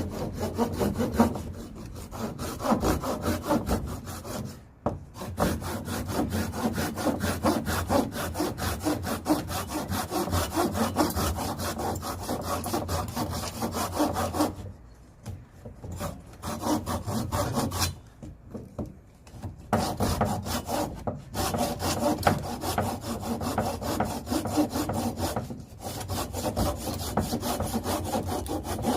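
A hand saw cutting through oak firewood in a steady rhythm of strokes, stopping briefly a few times.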